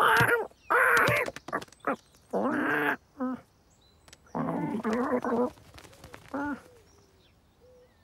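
Human-voiced cartoon animal noises: a bird squawking and a cat straining and grunting as it grabs at the bird, in about six short calls that bend in pitch, with a few sharp clicks between them.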